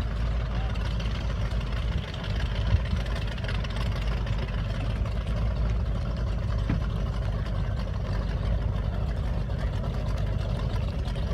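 1976 Scorpion jet boat's engine idling steadily, a deep even rumble.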